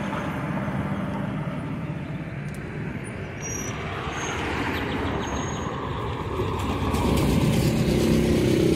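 Street traffic: cars and vans driving past on a town street, with the engine noise growing louder near the end.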